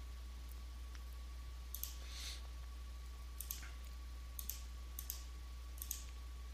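Computer mouse clicking, mostly in quick double clicks, about five or six times, over a steady low electrical hum.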